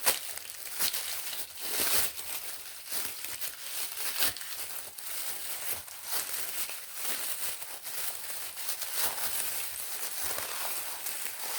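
Packing material crinkling and rustling as it is unwrapped by hand from a ceramic pot, in an irregular run of crackly rustles.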